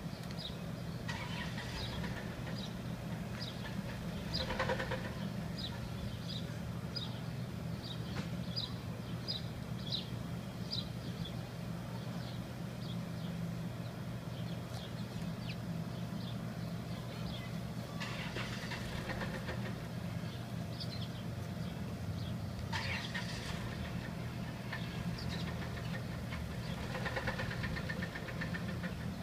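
Dodge engine running steadily with a very bad rod knock from a failing connecting rod, still running despite the damage.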